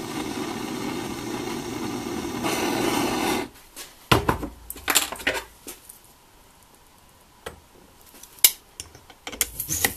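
Handheld cartridge gas torch hissing steadily as its flame heats a Simson moped crankshaft, then shutting off about three and a half seconds in. After that come scattered sharp metallic clicks and clinks as the torch is set down and a ball bearing, held in pliers, is fitted onto the heated shaft.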